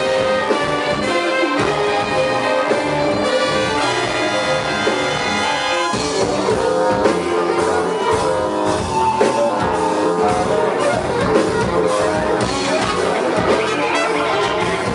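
A live ensemble with brass playing a piece of music, held notes layered over a busy low part; the texture shifts about six seconds in.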